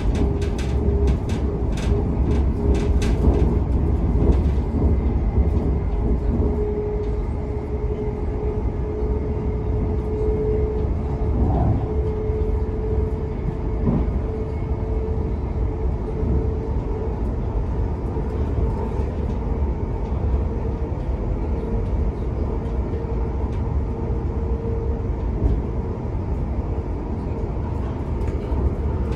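Interior running noise of a Class 720 electric multiple unit at speed: a steady low rumble of wheels on rail with a steady hum from the electric traction equipment. A run of sharp clicks comes in the first few seconds.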